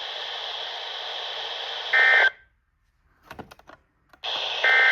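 Weather radio static hiss, then a short burst of two-tone SAME data warble, the end-of-message code that closes the weekly test, about two seconds in. The audio then cuts out, with a few faint clicks, before the hiss returns and a second identical burst sounds near the end.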